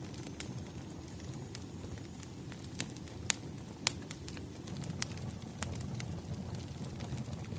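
Wood fire crackling: irregular sharp pops and snaps over a steady low rumble of the burning logs.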